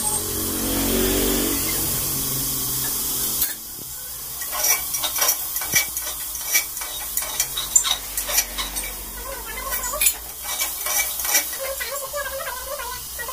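Vegetables frying in oil in an aluminium pressure cooker, a steady sizzle that cuts off suddenly about three and a half seconds in. Then a spoon scrapes and clinks against the pot many times as the vegetables are stirred.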